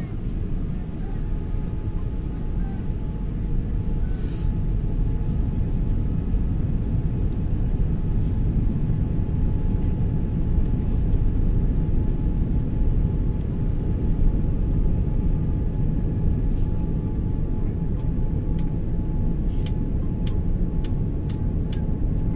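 Airliner cabin noise on final approach: a steady low rumble of engines and airflow, with a faint steady tone above it. Near the end comes a quick series of sharp clicks.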